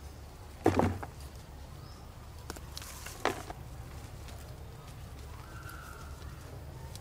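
Gloved hand digging and scraping through loose soil to uncover lesser yam tubers, over a low steady rumble. Two louder scrapes stand out, a strong one about a second in and a shorter one a little past three seconds.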